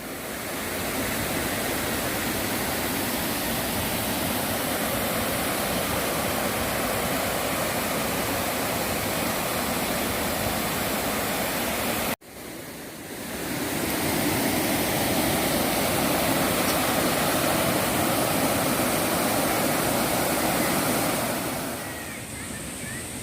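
Mountain stream water rushing over rocks, a steady splashing hiss, broken by a sudden cut about halfway, then resuming and fading down near the end.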